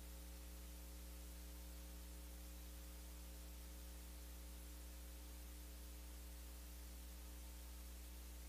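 Faint steady electrical mains hum with a hiss of static.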